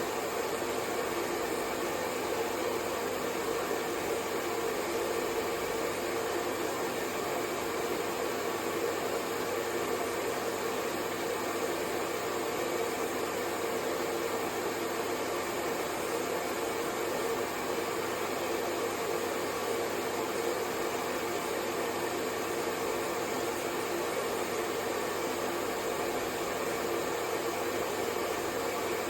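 Hair dryer running steadily: an even rush of air with a steady motor hum under it.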